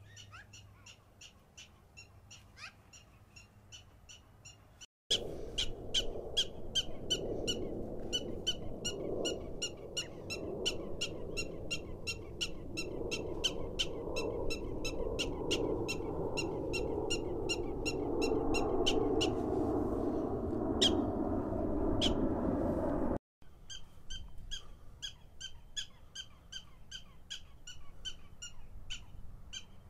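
Black-tailed prairie dogs barking their repeated high-pitched alarm call, about four short barks a second, kept up throughout. For most of the middle a loud low rushing noise sits beneath the calls; it grows louder and then cuts off suddenly.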